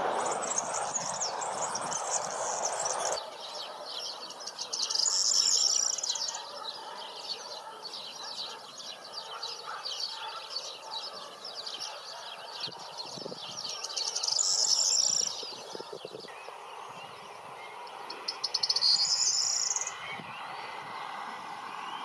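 Songbirds singing: a continuous high, rapid jingling twitter, broken by three louder song phrases of a second or so each, about five, fourteen and nineteen seconds in.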